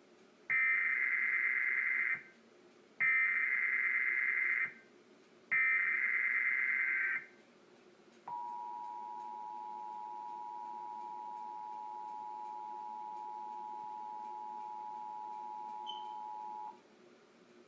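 Emergency Alert System tones from a TV during a required monthly test. First come three bursts of SAME digital header data, each about a second and a half long. Then the two-tone attention signal holds steady for about eight seconds and cuts off near the end.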